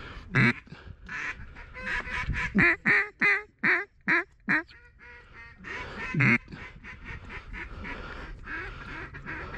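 Mallard duck call blown up close, a string of loud hen quacks: one near the start, a quick run of about six in the middle, and another about six seconds in. It is calling to ducks that are working toward the decoys.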